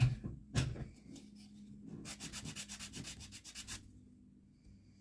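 Hand-sanding the edge of a small resin piece to take off the excess: two separate scraping strokes, then a quick run of short back-and-forth strokes that stops suddenly a little before the end.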